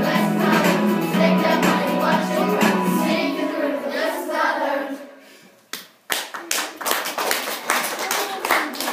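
A group of children singing a pop song over backing music, which fades out about halfway through. After a short pause, an audience of schoolchildren claps and applauds.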